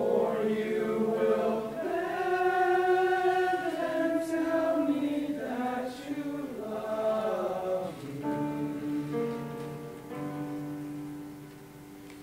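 Young male choir singing in sustained chords. The chord changes several times, and the sound grows quieter about two-thirds of the way through.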